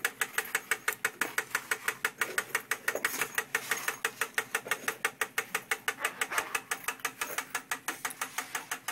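Mechanical automatic watch ticking steadily and evenly, about six ticks a second, the beat rate of a 21,600-vibrations-per-hour movement.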